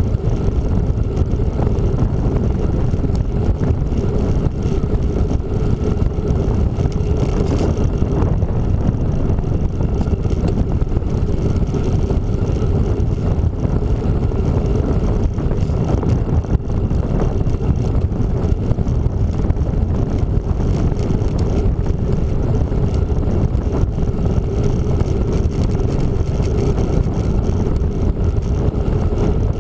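Steady wind rush on the camera microphone while cycling along a paved road, with low rumble from the bicycle tyres on the asphalt.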